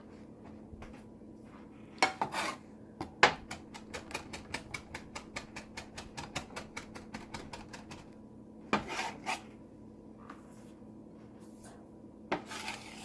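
Utensil clinking and scraping against a bowl while a thick paste is stirred: a few sharp clicks, then a quick even run of light ticks for several seconds, and more clatter twice near the end.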